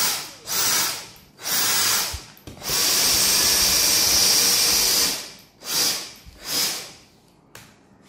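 Dyson DC58 Animal handheld vacuum cleaner's motor switched on and off with its trigger in short bursts, each time whirring up and dying away, with one longer run of about two and a half seconds in the middle. It is a test run of the freshly cleaned and reassembled vacuum.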